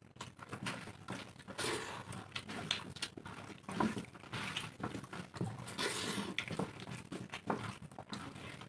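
Two people eating rice and curry with their hands from steel plates: wet squelching as fingers mix and scoop the rice, with chewing and mouth sounds, in irregular bursts.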